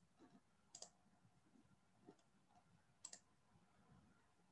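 Faint computer mouse clicks, a few single clicks about a second apart, over near silence.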